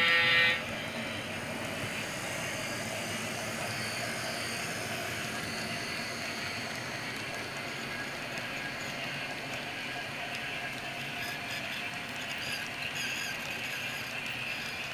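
Model passenger train cars rolling steadily past on the track, a continuous even rumble of small wheels on rail. Right at the start a short horn blast sounds.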